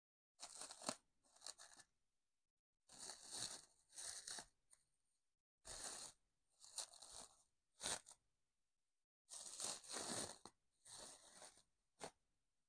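Clear plastic cling-film wrapping crinkling and tearing as it is pulled off a small plant pot, in a run of short bursts with brief gaps between.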